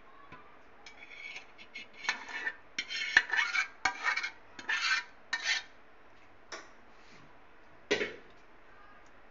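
A metal spoon scraping chicken masala out of a metal pan in a quick run of short rasping strokes, followed by a single clank near the end.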